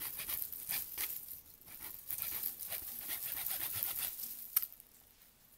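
Small hacksaw blade sawing through a side branch at the node of a bamboo rod, quick back-and-forth rasping strokes. A single sharp click comes about four and a half seconds in, after which the sawing stops.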